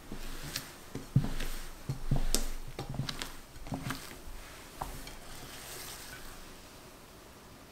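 Silicone spatula folding thick vanilla sponge-cake batter in a glass bowl: irregular wet squelches and scrapes with a few light knocks against the glass, dying away after about five seconds.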